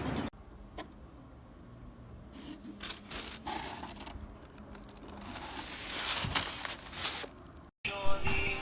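Scraping and rustling with scattered clicks, like objects being handled. Music starts near the end.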